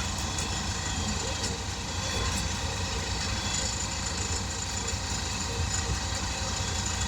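A motor running steadily: a constant low hum with several steady high whining tones over it.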